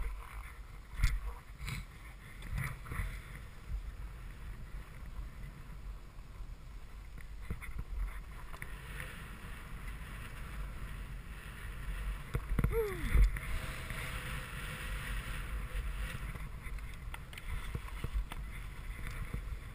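Skis sliding and scraping over groomed snow during a downhill run, a steady swishing hiss that gets stronger in the second half, with wind rumbling on the microphone. A few knocks come through, the loudest about two-thirds of the way in, just after a brief falling tone.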